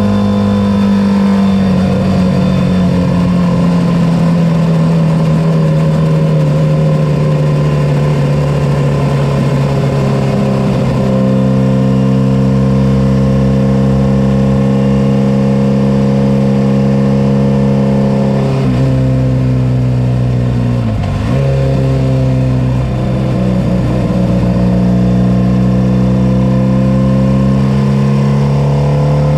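Racing sidecar engine heard onboard, running hard at high revs with a steady pitch. Its pitch dips sharply twice, about two-thirds of the way in, then settles again.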